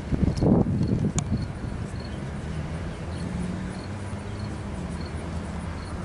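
Handling noises of a metal clothing snap being worked into a jacket flap, with a sharp click about a second in. Behind them, the steady low rumble of a vehicle engine running nearby, with a faint hum.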